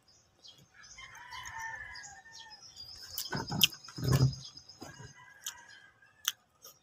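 A rooster crowing once, a call of about a second and a half that starts about a second in, with higher bird chirps after it. A couple of dull close thumps and a few sharp mouth clicks follow.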